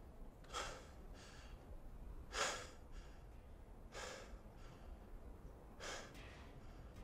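A man breathing hard. There are short, sharp breaths every one and a half to two seconds, some followed by a fainter one.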